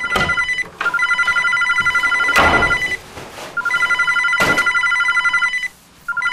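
Telephone ringing with a warbling electronic ring, in bursts of about two seconds with short pauses between them. A few loud thumps come in between the rings.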